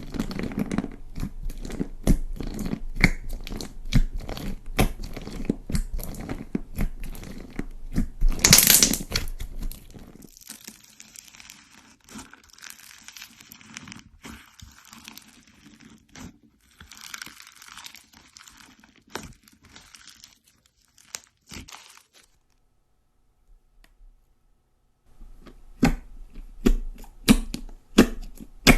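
Slime being squeezed, stretched and pressed by hand, making dense crackling, popping and squelching clicks. The sound is loudest for about the first ten seconds, then softer. It stops for a few seconds near the end, then the popping starts again.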